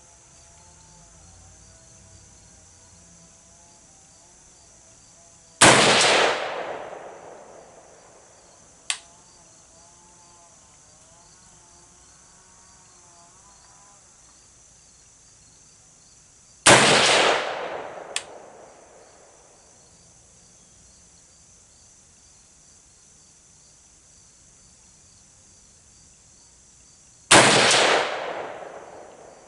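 Daniel Defense MK12 5.56 mm rifle fired three times, slow aimed shots about eleven seconds apart, each report followed by a long echo dying away over about two seconds. Two short, sharp clicks fall between the shots, and insects trill steadily in the background.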